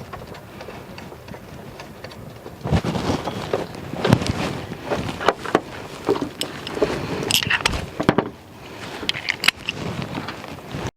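Irregular metallic clinks, knocks and rattles of hand tools and parts being handled while a power steering pump pulley is refitted, starting up a few seconds in after a quieter stretch.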